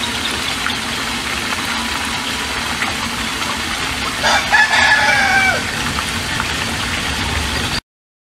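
A rooster crowing once, about four seconds in: one long call that falls away at the end. Under it runs a steady rush of water pouring from a pipe into a trap pit, with hens clucking. The sound cuts off abruptly near the end.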